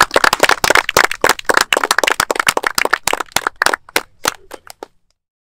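Small audience applauding. The claps thin out to a few scattered ones and stop about five seconds in.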